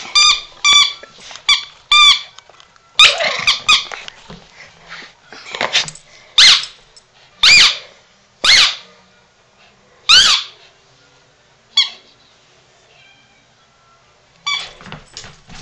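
Squeaky dog toy squeaked in quick succession as a small dog chews it, then the dog yapping: high single barks about a second apart, and a few more near the end.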